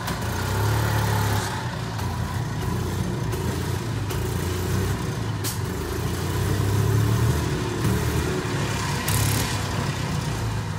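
Gas engine of a 1987–89 EZ-GO golf cart running as the cart drives, with a steady low drone that swells and eases.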